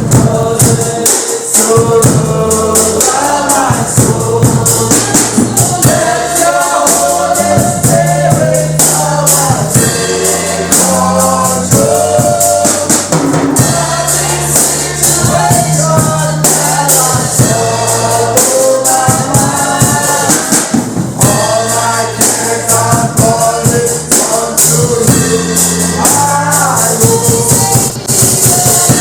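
Gospel music: several voices singing a melody over a steady beat, with tambourine, drums and a bass line.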